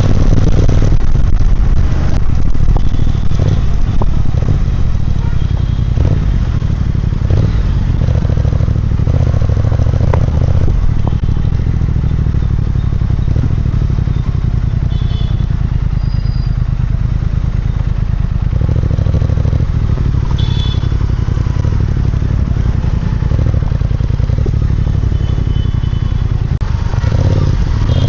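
Triumph Speed Twin 1200's 1200 cc parallel-twin engine running steadily through its exhaust, a little louder for the first five seconds or so.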